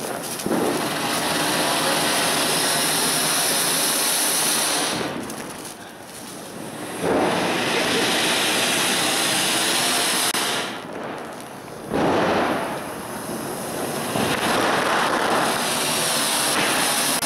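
Ground fountain fireworks (anar) spraying sparks with a loud, steady hiss. The hiss sags twice and comes back suddenly about 7 and 12 seconds in, as fresh fountains take over.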